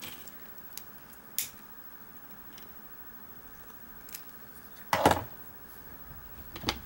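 Small clicks and light handling of a hand-held lighter as a tealight candle is lit, with a louder knock about five seconds in.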